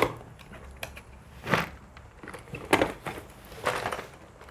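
Cardboard toy box being opened and a plastic toy part pulled out of it: three short bursts of scraping and rustling from cardboard and plastic being handled.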